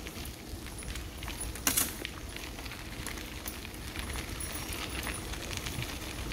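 Bicycle rolling over a gravel trail: a steady low rumble of tyres and wind, with many small rattles and clicks from the bike, and one louder clatter a little under two seconds in.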